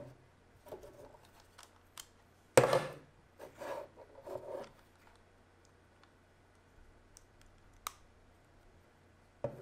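Hands handling a small action camera and its wire leads on a desk: scattered clicks, scrapes and rubbing, with a louder knock about two and a half seconds in and a sharp click near the end.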